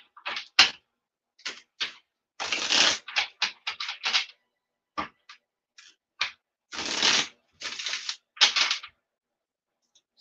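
A tarot deck being shuffled by hand: irregular bursts of cards rubbing and slapping together, some longer runs a few seconds in and again near the end, with short gaps between.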